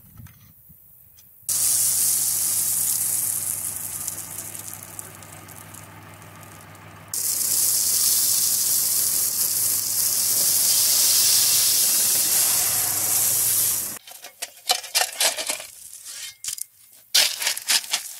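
Gravel pouring out of a tractor's front-loader bucket into a trench, a steady rushing hiss over the tractor's engine running, growing louder about halfway through. Near the end the pour stops and a shovel scrapes and crunches into gravel in short strokes.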